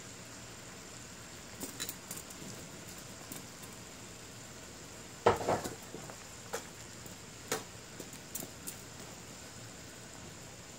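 Metal ladle clinking and scraping in a nonstick pan as broth is spooned over braised chicken and vegetables: a few light clicks, one louder knock about five seconds in, over a low steady hiss of the pan simmering.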